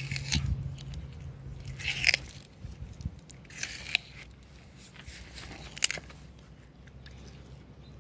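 Sulcata tortoise biting and chewing watermelon, with a few wet crunches of rind and flesh a second or two apart.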